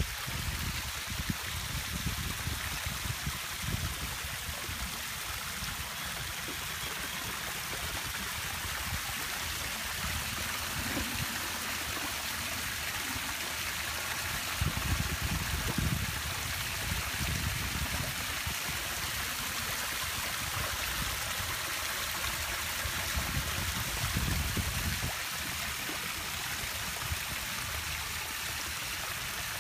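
A small garden-pond waterfall splashing steadily over rocks into the pond, with a few stretches of low rumble now and then.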